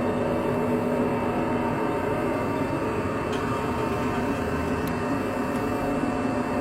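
Steady low droning hum with several held tones over a rumble, of the kind passed around as a mysterious 'strange sound from the sky'.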